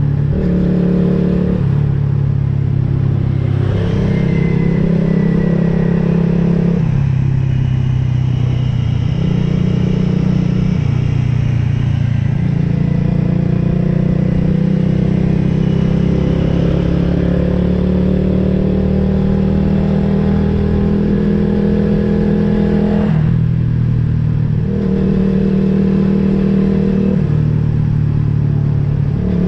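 Motorcycle engine running while riding at speed, its pitch shifting every few seconds, with wind and road noise.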